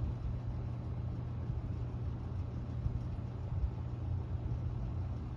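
Toastmaster 4437 box fan running steadily on low speed: a low motor hum under the rush of moving air. Its blade is a little out of balance in the lightweight aluminum cabinet.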